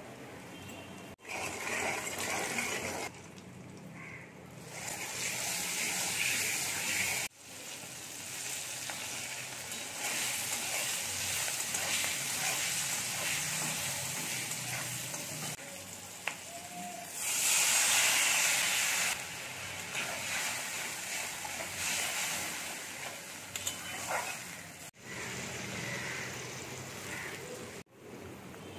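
Eggplant and tomato pieces sizzling in hot oil in a wok, then a spiced curry gravy bubbling at a boil, heard in several short clips that cut in and out abruptly. About two-thirds of the way through, the hiss grows louder for a couple of seconds.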